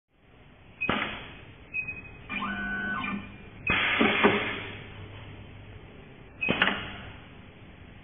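Rotary knife cable stripping machine working on a cable: sharp mechanical knocks, a short steady pitched whir, then a cluster of louder knocks over a low hum as it cuts the insulation, and a last knock later on.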